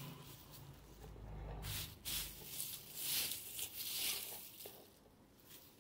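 Dry leaves rustling as they are scooped from a steel bowl and spread over potting soil, in several short bursts.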